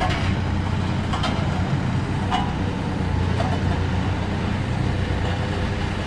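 Engine of a small 3-ton double-drum road roller running steadily as the roller drives along, a constant low hum.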